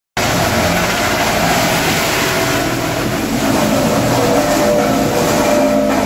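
A sawdust-making wood crusher machine running, with the tractor that stands behind it: a loud, steady mechanical din with a constant hum and no break.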